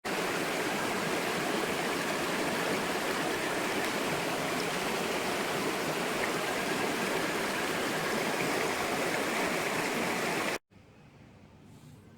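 Steady rushing of running water, like a stream, that cuts off abruptly near the end, leaving a much quieter background.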